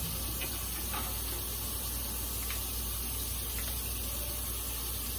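A steady rushing noise with a low hum underneath, broken by a few faint light clicks.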